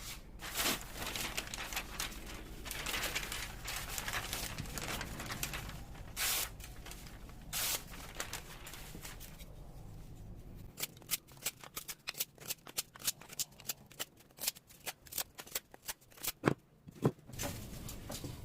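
Bushcraft knife at work, with rough scraping and cutting strokes at first. From about ten seconds in come many quick, irregular sharp clicks and knocks, with two louder knocks near the end.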